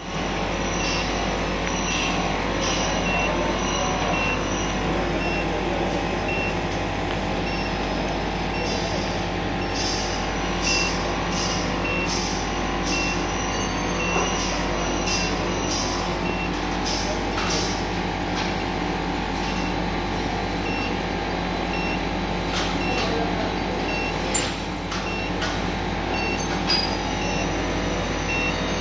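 Refrigerated centrifuge running with a steady hum, with a short high beep repeating about once a second and scattered light clicks.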